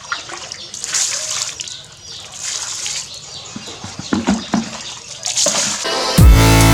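Water splashing and sloshing in short bursts, with a few knocks, then loud electronic dance music cuts in near the end.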